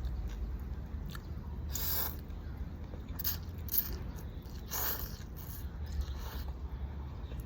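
A person eating noodle soup close to the microphone: four short noisy bites and chews, a second or so apart, over a low steady hum.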